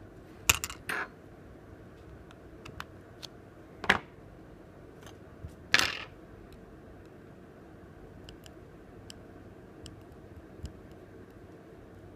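Small hard tools and phone parts clicking and tapping on a work surface: a few sharp clicks, the loudest about half a second, four and six seconds in, among lighter ticks.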